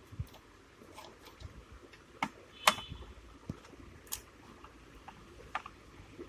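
Small irregular clicks and taps of a screwdriver working the screws out of a fingerprint scanner's casing, with one sharper clink that rings briefly about two and a half seconds in.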